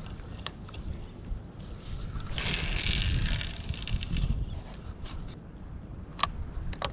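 Wind rumbling on the microphone, with a louder rushing hiss lasting about two seconds that starts a little over two seconds in. A few sharp clicks come near the end.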